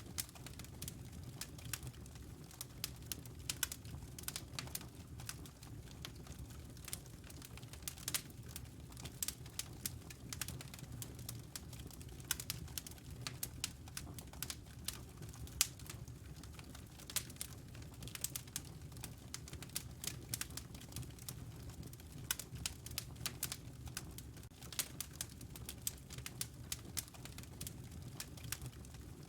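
Wood fire crackling in a stone fireplace: irregular snaps and pops, some louder than others, over a steady low rumble.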